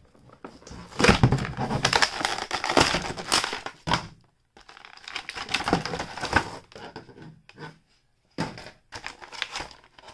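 Clear plastic packaging crinkling and crackling as an action figure is worked out of its box and plastic tray, in three bursts with short pauses between them.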